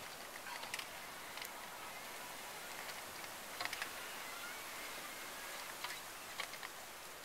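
Homemade PVC hand piston pump being worked up and down: a few sharp clicks and knocks of the plastic pipe, scattered a second or two apart, with faint squeaks near the middle, over a steady hiss.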